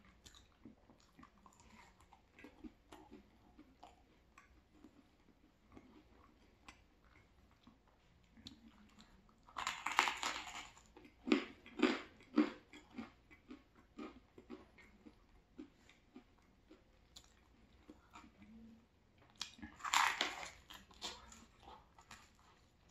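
Chewing of crispy thin-crust deluxe pizza, with two loud crunching bites into the crust, about ten seconds in and again near twenty seconds, the first followed by several hard crunches as it is chewed.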